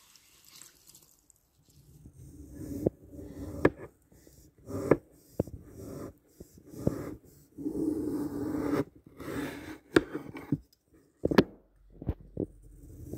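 A knife cutting down into a glitter-coated foam block: irregular bursts of crunching and scraping with several sharp cracks, starting about two seconds in after a faint, quiet opening.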